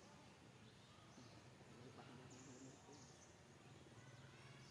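Near silence: faint background ambience, with a few soft, short high-pitched sounds now and then.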